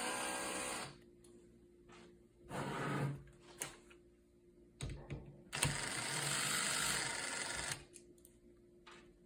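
Power screwdriver running in short spurts as it backs out small screws from a keypad lock, three runs with the longest about two seconds near the middle, and a few light clicks of metal parts between.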